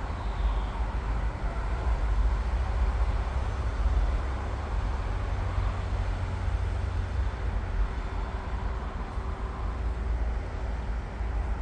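Electric passenger train with a CFR class EA electric locomotive running steadily: a low rumble with a constant hum over it.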